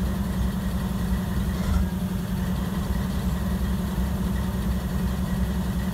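GE diesel-electric freight locomotive idling at a standstill: a steady, low engine sound.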